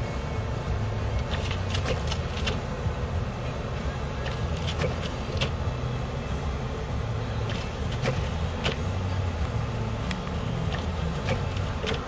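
Wind-driven snow and ice pellets ticking irregularly against a car windshield, over a low, uneven rumble heard from inside the cabin.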